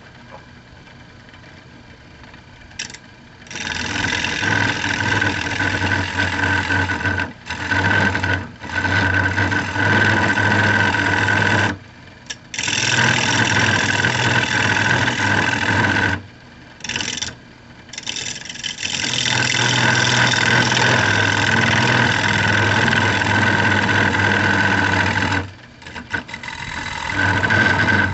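Wood lathe spinning a cherry wood bowl while a turning gouge cuts into it. A steady hum, then from about three seconds in loud cutting noise in stretches of a few seconds, broken by short pauses when the tool comes off the wood.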